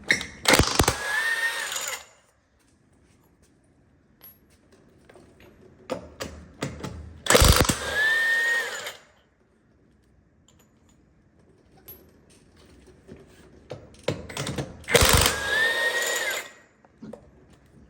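Pneumatic impact wrench run in three bursts of about a second and a half each, roughly seven seconds apart, hammering as its air motor spins up.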